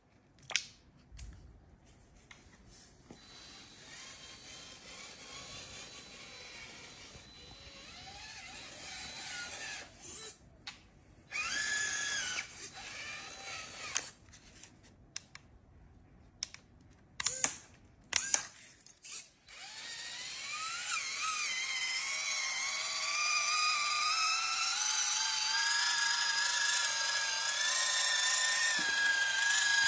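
Small electric motor whining, in short runs with clicks and knocks in between, then from about two-thirds of the way in running steadily and louder, its pitch wavering and rising.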